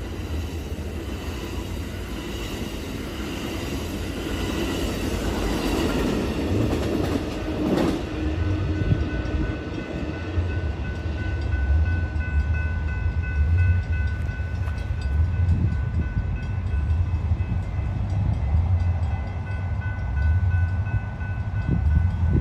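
Amtrak Superliner passenger cars roll past on the rails with wheel and track noise that ends about eight seconds in. A grade-crossing warning bell then rings steadily, with wind gusting on the microphone.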